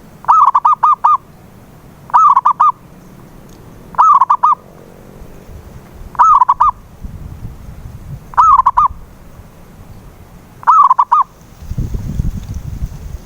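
Zebra dove (perkutut) singing: six short cooing phrases of three to five quick notes, one about every two seconds. A low rumble comes in near the end.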